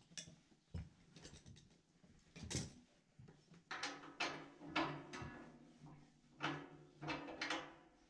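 Several sharp metal clinks and knocks, one after another with short pauses: hand tools and radiator valve fittings being picked up, set down and worked at the valve.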